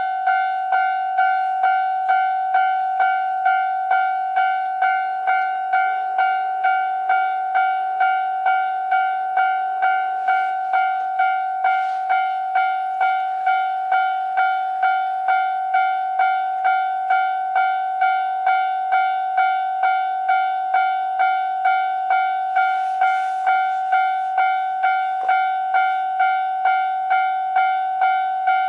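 Railway level-crossing alarm bell ringing, a steady ding-ding struck about twice a second: the warning that a train is approaching the crossing.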